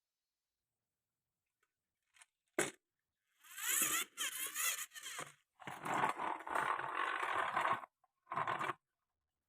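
Marbles rolling and rattling along a wooden marble run: a single click about two and a half seconds in, then two long stretches of rolling and a short one near the end.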